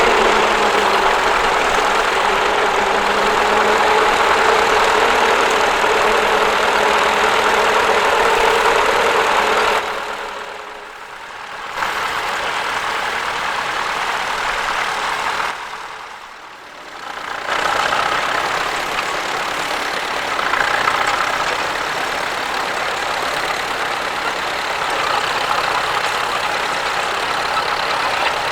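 Tractor engine running steadily. The sound drops away briefly twice, about ten and sixteen seconds in, then returns.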